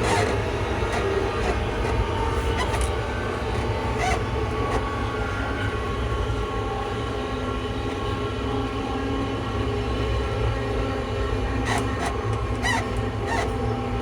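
ScotRail Class 334 electric multiple unit running, heard on board: its direct-drive traction motors give a steady whine in several tones over a low running rumble, with a few clicks from the track.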